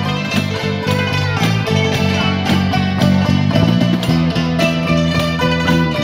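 Thai khim hammered dulcimers struck with mallets in a quick, busy melody, over an electric bass guitar holding low notes.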